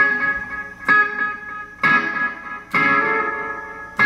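Electric guitar chords struck about once a second, each ringing out and fading before the next.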